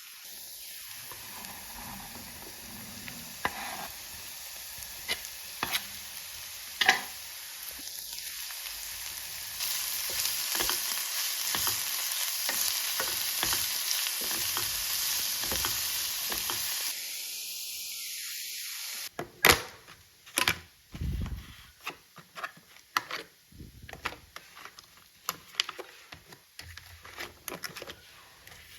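Food sizzling as it fries in a pan, stirred with a utensil that clicks against it. It is louder in the middle. About two-thirds of the way in the sizzle stops, leaving a run of sharp clicks and knocks of the utensil.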